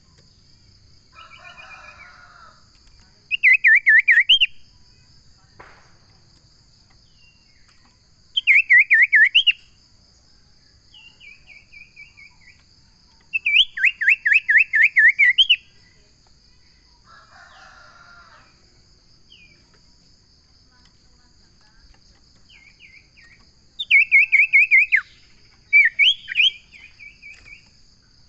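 Common iora singing: about five loud bursts of rapid, whistled up-and-down notes, each lasting one to two seconds, with pauses between. A steady high insect buzz runs underneath.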